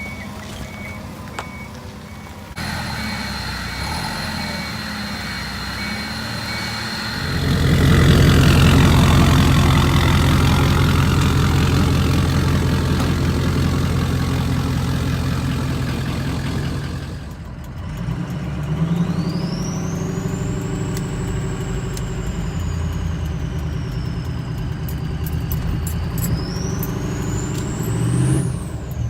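A truck engine running loud and steady for about ten seconds. After a break, it is heard again with a high whistle that rises and falls, climbing sharply along with the engine near the end as it is revved.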